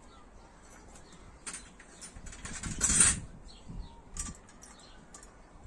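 Handling noise from fitting the metal handle and bolt onto a rolling mesh-drum compost spreader: scattered small clicks, with one short, louder noise about three seconds in.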